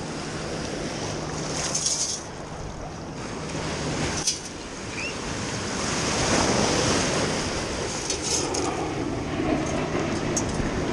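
Shallow surf washing and foaming around the legs, with wind buffeting the microphone; the wash swells and eases, and a single sharp tap stands out about four seconds in.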